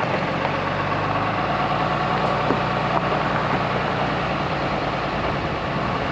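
Truck driving along a paved road: steady engine and road noise with no change in speed.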